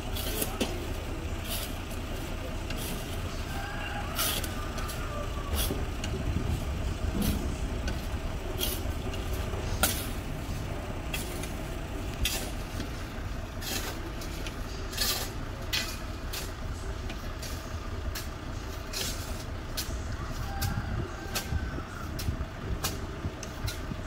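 Shovels scraping and striking into sand on a truck's flatbed, an irregular run of sharp scrapes and clinks every second or so, over a steady low rumble.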